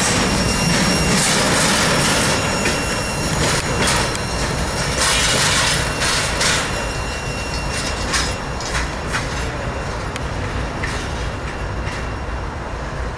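Freight cars of a passing Norfolk Southern freight train rolling by at close range, their wheels clicking over rail joints with a thin, steady wheel squeal in the first half. The rolling noise eases somewhat after the middle, while separate wheel clicks carry on.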